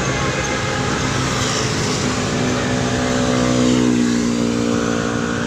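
Basuri telolet horn sounding several steady notes together over running vehicle engine noise, the horn tones strongest in the second half.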